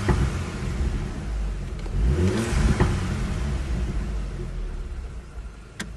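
Audi TTS's turbocharged 2.0 TFSI four-cylinder revved through its stock exhaust. The revs climb and fall away about two seconds in, and sharp pops come on the overrun, with another near the end.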